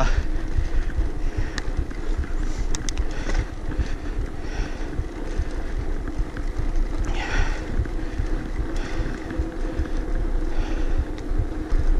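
Wind buffeting the microphone of a camera on a moving mountain bike, a steady rumble with a few small clicks and rattles, and now and then the rider's hard breathing.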